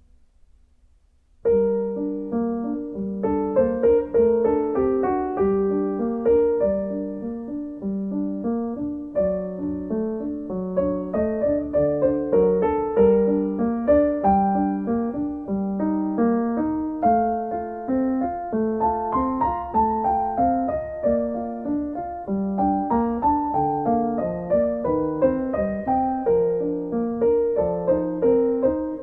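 Background piano music that starts suddenly about a second and a half in, then keeps up a steady flow of notes.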